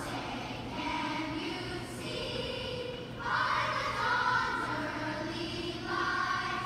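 A choir singing slow, long held notes in a large arena.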